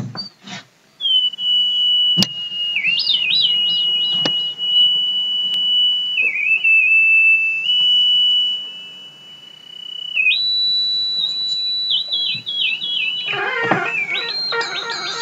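A high, pure whistling tone held for long stretches, with quick dips and flourishes, jumping higher about ten seconds in; near the end it breaks into a falling cluster of several tones.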